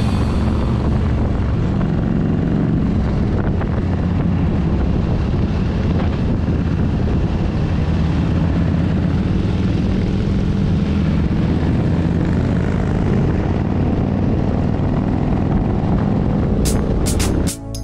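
Harley-Davidson V-twin motorcycle engine running steadily at cruising speed, buried in heavy wind rush on the microphone. It cuts off near the end.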